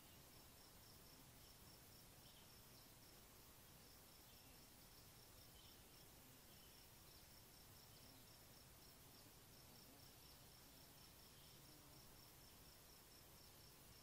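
Faint insect chirping: a high, rapid pulsing at one pitch that keeps up steadily, with a few fainter short chirps, over soft background hiss.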